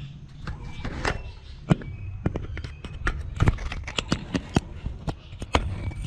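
A hornbill's bill pecking and knocking at the camera: sharp, irregular taps and clacks that come thicker from about three seconds in.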